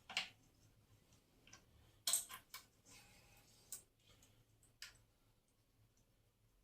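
Five or six small, separate clicks and taps of plastic and metal parts being handled as the angle grinder's carbon-brush springs and cover are pressed back into place. The loudest click comes about two seconds in.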